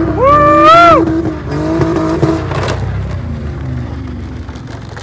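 Car engines revving hard at a high, steady pitch while racing on dirt, with a loud, high whooping yell in the first second. The revs then drop and the engine note falls away.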